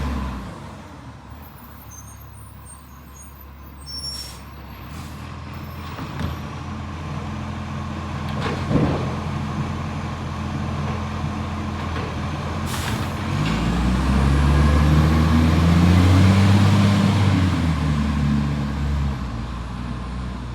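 Rubbish truck's diesel engine running, growing louder partway through as it pulls away under power and then easing off, with a few short air-brake hisses. The truck has an exhaust leak.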